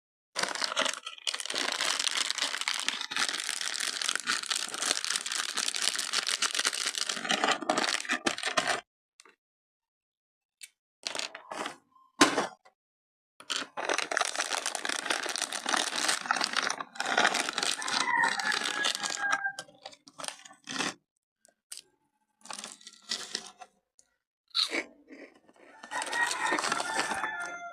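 Crinkly chip bag being handled and torn open, in long bursts of crackling with short pauses between.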